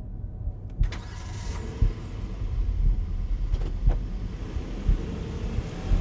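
A car engine starting about a second in, then running at idle. Under it are low thumps roughly once a second.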